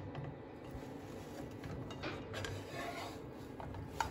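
Plastic spatula scraping and shifting against a nonstick frying pan as a crepioca is worked loose from it, with a sharp tap near the end.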